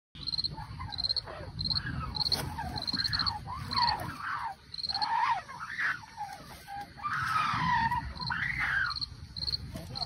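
Insects chirping in a steady rhythm, short high chirps about twice a second, with other rising-and-falling calls over them.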